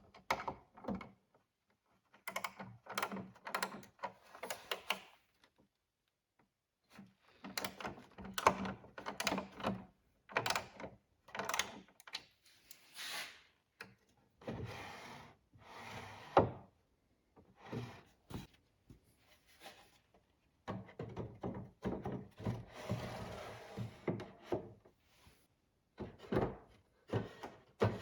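Handmade wooden drawers being slid open and shut: stretches of wood rubbing on wood, broken by sharp knocks and clacks as they bump home.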